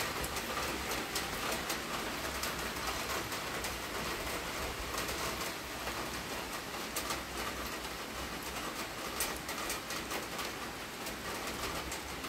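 Heavy rain pouring steadily, with a dense patter of sharp drop hits close by.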